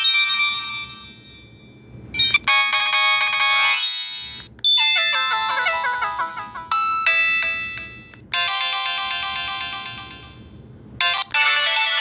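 Samsung SCH-B309 mobile phone playing its default ringtones one after another through its small speaker: short electronic melodies, each cut off abruptly as the next one starts, four new tunes beginning in turn after the previous one fades out.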